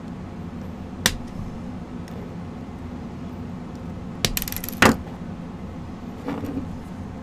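Sharp metallic clicks of steel pliers on a sterling silver ring's wire prongs: one about a second in, then a short clinking rattle ending in the loudest click near the middle, over a steady low hum.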